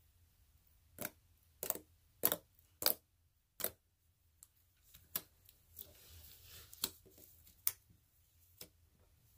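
Fingers poking into blue slime, making five sharp clicks and pops about two-thirds of a second apart, then softer squishing and smaller clicks as the slime is peeled up and folded.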